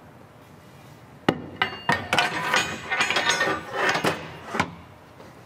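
A firefighter's New York hook being stowed in a fire engine's gear compartment: metal clanking and rattling against its mounting bracket, starting with a sharp knock about a second in, then a brief metallic ring, and ending with another sharp knock.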